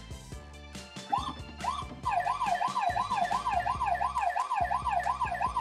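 Electronic toy siren from a Bruder light-and-sound module: two short wails about a second in, then a fast, continuous yelp that rises and falls about three times a second, with background music underneath.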